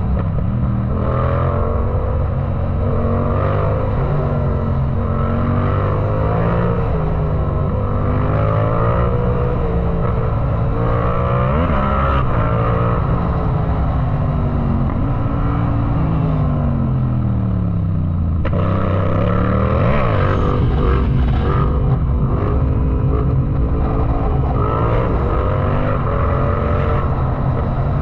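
Yamaha MT-07 parallel-twin engine under hard riding, its pitch repeatedly climbing under throttle and dropping at shifts and roll-offs. A long slide down in revs comes past halfway, then it pulls hard again.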